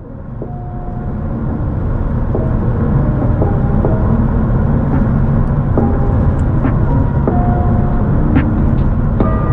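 Steady low road and engine rumble of a car driving, heard from inside the cabin. It fades in over the first two seconds or so. Faint held music notes change pitch over it.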